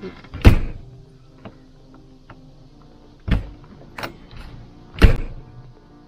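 Travel-trailer entry door being pushed shut and latching into its new RVLock V4 keyless handle, testing the re-set strike plate: a hard thud about half a second in, two lighter knocks just after three and four seconds, and another hard thud about five seconds in. The latch gives a firm, stronger close.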